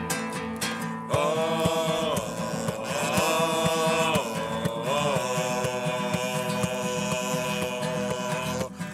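A group of men singing together in long held notes without clear words, over a strummed acoustic guitar.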